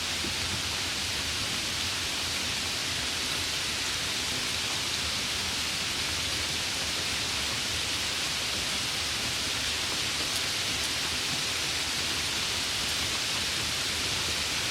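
Steady rainfall, an even unbroken hiss with no separate drops or events standing out.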